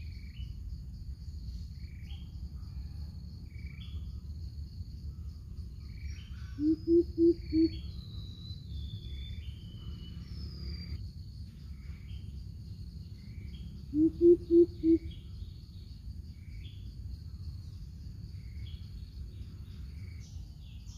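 Coucal giving two runs of four deep, evenly spaced hoots, about seven and fourteen seconds in. Under them a steady high insect drone and scattered small-bird chirps go on throughout.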